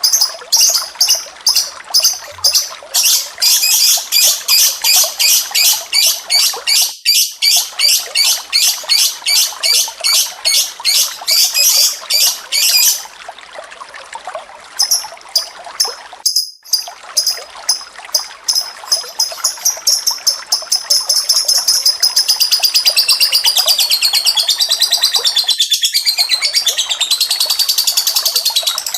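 Captive songbird singing over a steady trickle of running water. For the first half it gives a fast series of sharp high chirps, about three a second. After a quieter stretch, a continuous wavering warble starts near the end.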